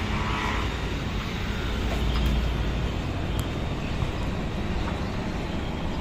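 Radio-controlled Cessna 182 model plane's motor and propeller droning steadily as it flies a low pass, over a steady low rumble.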